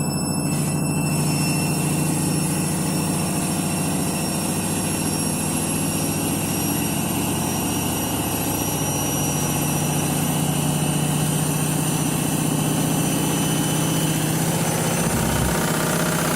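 Candy washing machine spinning a load of bedding, with a steady drum hum and a high motor whine that rises slightly early on. A low thump comes near the end, a sign of the unbalanced bedding load knocking the drum.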